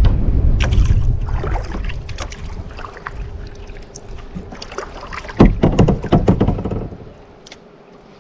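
A run of sharp knocks and clatters over a low rumble, loudest a little past halfway. The rumble drops away near the end.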